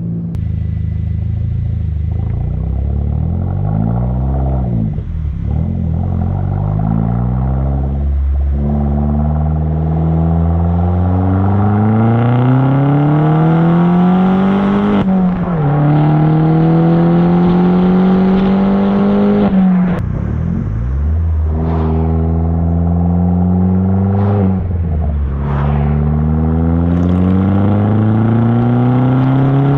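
Opel Corsa OPC's 1.6-litre turbocharged four-cylinder engine, with a handmade exhaust, pulling hard through the gears: the revs climb steadily, then drop sharply at each upshift, two of them clearly about 15 and 20 seconds in. A few short clicks come in the second half.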